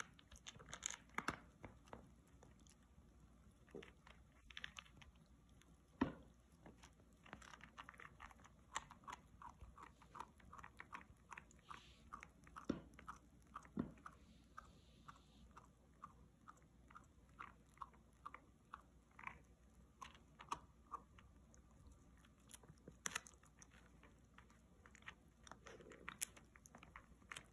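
Golden retriever puppy gnawing on a long, dry dog chew: a string of short clicking, crunching bites, settling into a steady run of about two to three chomps a second through the middle, with one louder knock about six seconds in.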